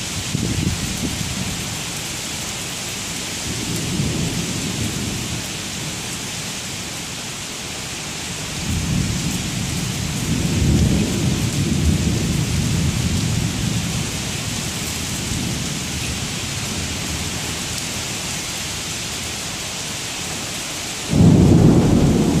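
Heavy rain pouring steadily onto pavement and trees in a thunderstorm, with thunder rumbling low several times. The longest roll comes in the middle, and a sudden, louder low rumble breaks in near the end.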